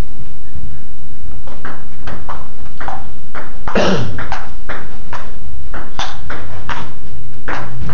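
Table tennis ball clicking off the table and the paddles during a rally, about two to three hits a second. The loudest hits come about four seconds in.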